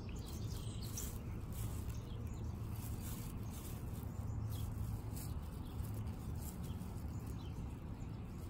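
Faint bird chirps over a steady low hum, with light rustling of lawn grass as a hand parts it.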